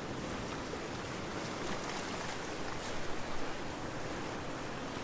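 Ocean surf: a steady hiss of waves washing on a shore, swelling a little about halfway through.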